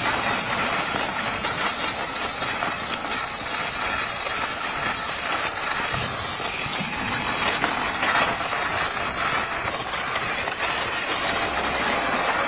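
Remote-control toy car driving over stone paving: the steady whir of its small electric motor and gears, mixed with the noise of its tyres on the rough stone.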